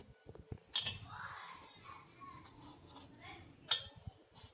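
Three sharp metallic clinks and taps on a stainless steel plate as cut pieces of steamed dough are handled on it: one at the very start, one just under a second in, and one near the end.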